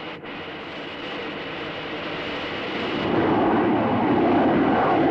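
Aircraft in high-subsonic flight: a steady rushing roar of airflow and engine with faint whining tones, growing louder about three seconds in.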